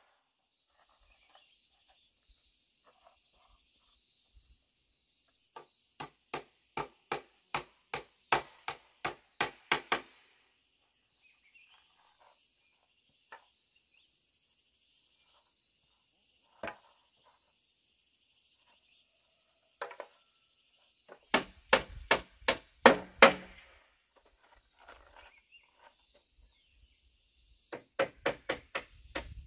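Blows of a blade chopping into bamboo, in quick runs of about two strikes a second with pauses and single strikes between them. Insects drone steadily behind.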